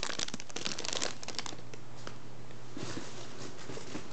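Clear plastic packaging crinkling as squishy toys are handled, dense crackling for about the first second and a half, then a few fainter rustles near the end.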